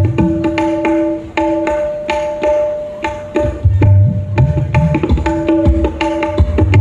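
Dangdut gendang (tabla-style hand drums) played in a fast rhythmic pattern for a sound check: sharp ringing strokes on the high drum mixed with deep bass strokes that slide in pitch.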